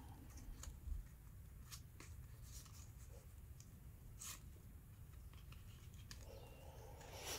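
Faint handling of trading cards: soft rustles and a few light clicks as the cards are sorted and laid out.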